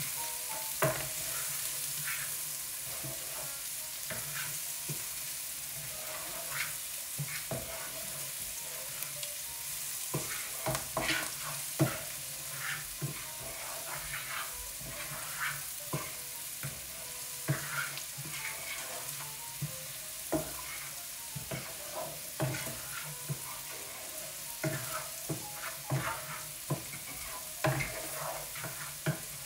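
Vegetables sizzling in oil in a nonstick skillet, stirred constantly with a wooden spatula: a steady hiss of frying under irregular scrapes and knocks of the spatula against the pan, which come more often after the first few seconds.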